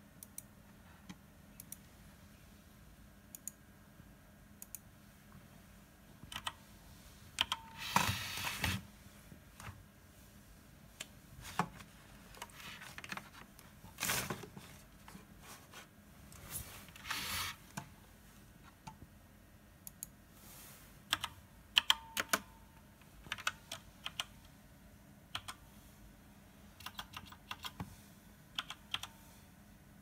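Computer keyboard typing and mouse clicks: scattered, uneven keystrokes, with a few longer, louder noises about a quarter and about half of the way in. The typing is a G-code move command being entered into CNC control software.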